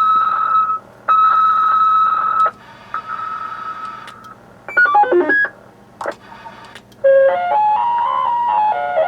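Electronic tones from a CB noise toy box: two long steady beeps at one pitch, then a fainter third, a quick run of stepped notes about five seconds in, and, from about seven seconds in, a tune of stepped electronic notes. A couple of short clicks come between the tones.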